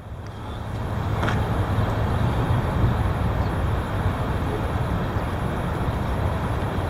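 Heavy wind buffeting the microphone: a steady low rumbling roar that swells over the first second, then holds.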